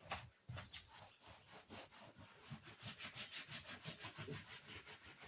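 Rapid back-and-forth rubbing against a wall, a quick run of hissy strokes several times a second starting about a second in.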